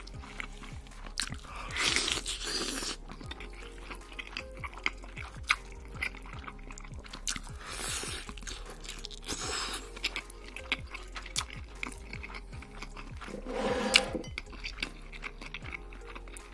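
Close-miked eating sounds: chewing and crunching of food, with a few louder crunching bites about 2, 8, 9.5 and 14 seconds in, over soft background music.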